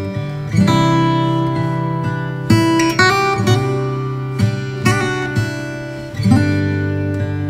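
Background music: acoustic guitar playing, with chords and notes picked out every half second to a second, each ringing on and fading.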